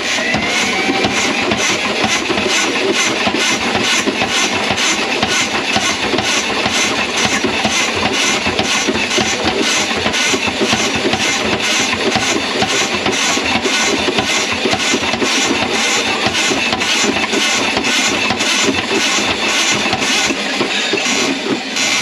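Motorized drain snake running, its spinning cable clattering steadily in the drain line while it works through a grease clog. The motor's pitch rises briefly as it spins up about the first second.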